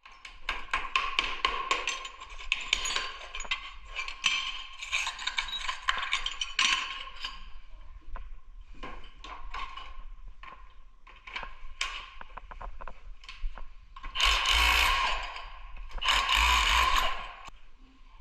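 Hand tools working on tile: a fast run of clicks, taps and scrapes, then two longer noisy scraping passes of about a second each, late on.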